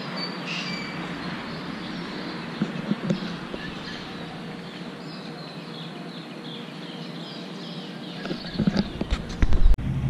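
Steady outdoor background noise with a few faint high chirps. About eight seconds in comes a burst of loud low thumps and rumble.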